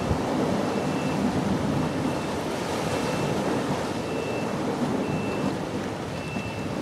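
Steady wind noise over choppy river water, with wind buffeting the microphone.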